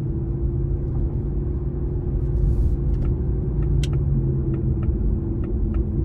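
Mustang GT's 5.0 L V8 through a Borla S-Type cat-back exhaust, heard from inside the cabin at a steady cruise: an even, low exhaust rumble with road noise, not rising or falling. A faint regular ticking comes in during the second half.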